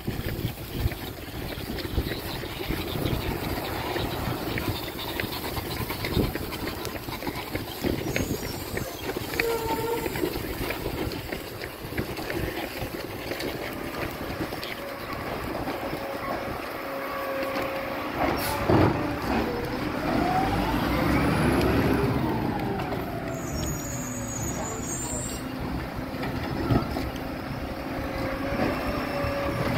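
Garbage truck's diesel engine running, with a sharp knock about two-thirds of the way through, after which the engine revs up and back down.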